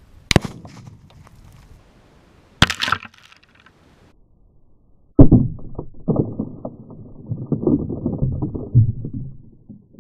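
Two sharp rifle shots a couple of seconds apart. About five seconds in comes a much louder deep boom, which rolls on for several seconds with crackling: a binary Tannerite charge detonating.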